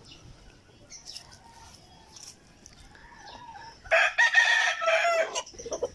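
A rooster crows once, a single long crow beginning about four seconds in and lasting about a second and a half. A few faint short chirps come before it.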